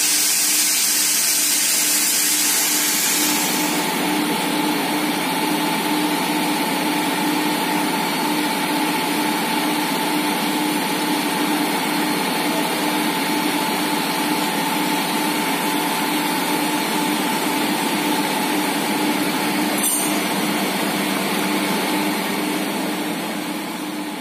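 Jumbo bag filling machine running with a steady industrial hum. A loud airy hiss covers the first few seconds and cuts off abruptly, and the hum fades out near the end.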